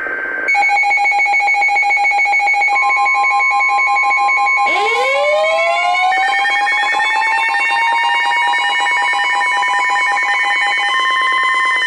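Several emergency alert tones sounding at once, heralding a tornado warning: a fast-pulsing two-tone alarm, a steady tone joining about three seconds in, and a siren winding up from low to high pitch about five seconds in, then holding its pitch.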